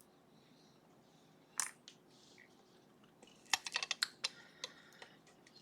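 Light metallic clicks and clatter as a lock and lockpicking tools are handled: one click, then a quick cluster of clicks about two seconds later.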